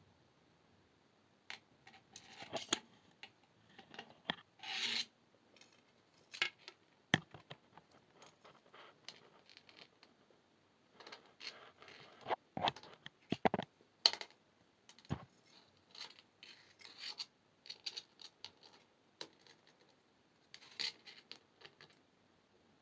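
Thin brass wire being wound and pulled by hand around small gems and beads: irregular small clicks, scratches and light rubs of the wire, with one longer scrape about five seconds in.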